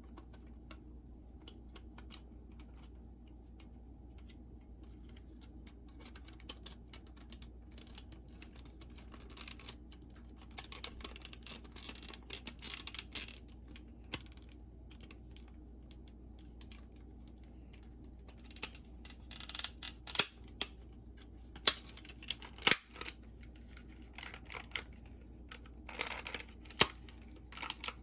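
Small plastic clicks, taps and rattles from handling a Sony WM-FX28 cassette Walkman, as its back cover is fitted. The clicks come singly and in short clusters, with a few sharper snaps about two-thirds of the way through, over a faint steady hum.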